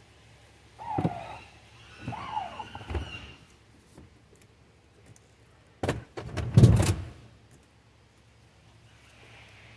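Power-folding third-row seats of a 2021 GMC Yukon Denali: the seat motors whir in two short spells with a gliding whine, then heavy thuds about six to seven seconds in.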